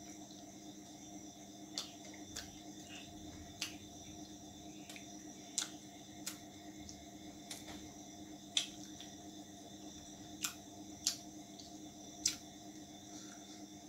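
Eating roti and chicken curry by hand from a steel plate: about ten scattered sharp, wet clicks and smacks of chewing and handling the food, over a steady low hum.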